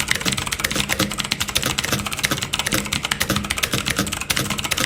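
Fast typing on a Roccat Suora FX mechanical keyboard with clicky, tactile TTC Blue switches: a dense, continuous stream of sharp key clicks, many a second. The switches sound a bit rougher than Cherry MX Blues.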